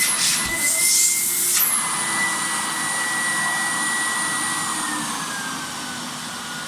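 Fagor Electronic 2.350 vacuum cleaner running with a steady high motor whine, with rushes of hissing air in the first second and a half. About five seconds in the whine slides lower in pitch and the sound gets a little quieter.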